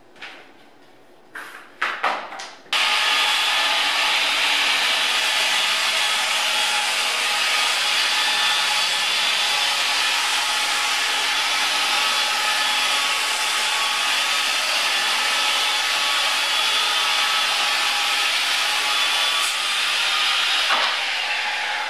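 Handheld circular saw making a long rip cut through a wooden board. After a few knocks it starts abruptly about three seconds in and runs steadily through the cut, then begins to wind down near the end.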